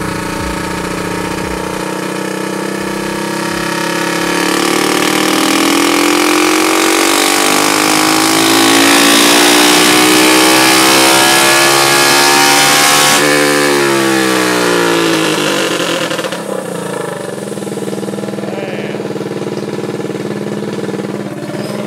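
Tillotson 225 Stage 4 single-cylinder four-stroke go-kart engine making a wide-open-throttle pull on an inertia dyno: it runs steadily for a few seconds, then its revs climb for about nine seconds toward its peak near 7,800 rpm. The throttle then shuts suddenly and the revs fall away over a few seconds, settling into a lower steady idle.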